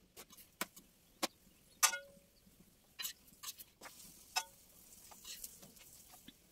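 A metal spoon clicking and clinking against a flat pan as a chapati is cooked. The clicks are irregular, and one louder clink about two seconds in rings briefly.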